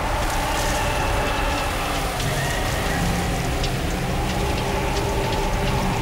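A steady, dense rushing noise like rain, with faint held tones underneath and scattered light ticks, making up a horror soundtrack's eerie atmosphere bed.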